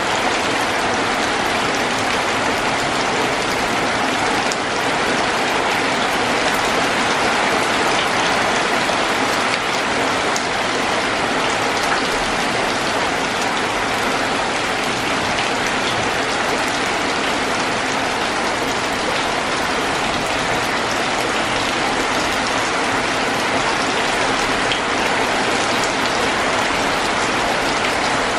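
Heavy rain falling steadily on trees and a corrugated sheet-metal roof, with runoff splashing off the roof edge.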